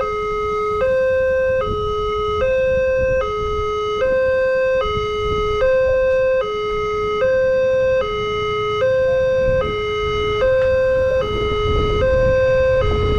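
Electronic Multec level-crossing siren sounding a steady two-tone hi-lo wail, switching pitch about every 0.8 seconds, warning of an approaching train. A low rumble builds underneath near the end.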